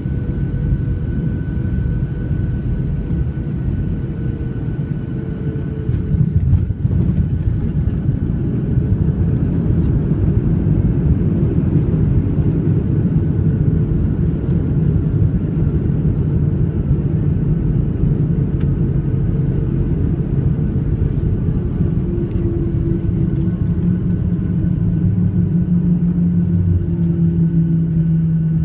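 Boeing 737-700 landing, heard from inside the cabin over the wing: a steady low rumble of engines and airflow, a brief jolt about six to seven seconds in as the wheels touch down, then a louder rumble as the jet rolls and slows on the wet runway.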